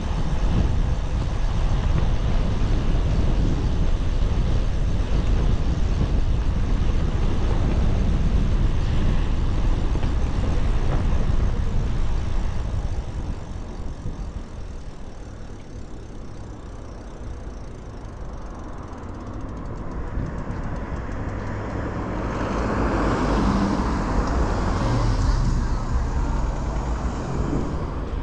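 Steady low rumble of road traffic, loud for about the first twelve seconds, then easing off and swelling again near the end as something passes.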